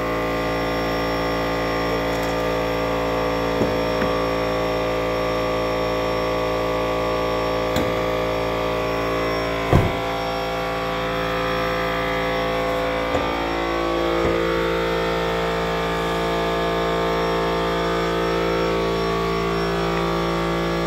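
Air compressor running steadily as it builds up tank pressure for the air tools, a constant mechanical hum whose tone shifts slightly about two-thirds of the way through. A few light knocks sound over it, the loudest about ten seconds in.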